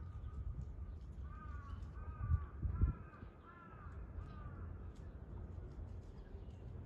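A crow cawing in a quick series of short calls, about two a second, with a couple of low thumps about two and three seconds in.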